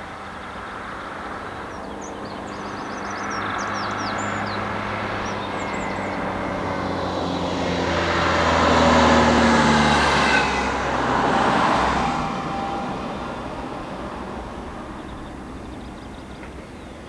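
Class 56 diesel locomotive's Ruston-Paxman 16-cylinder engine droning as it approaches hauling a freight train. The engine grows louder to its loudest about halfway through, then eases back. Birds chirp faintly in the first few seconds.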